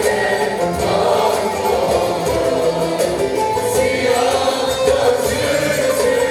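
Turkish folk music: voices singing together over instrumental accompaniment.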